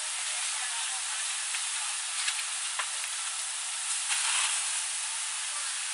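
Steady hiss of a burning apartment building being fought with fire hoses, broken by a few sharp crackles around the middle.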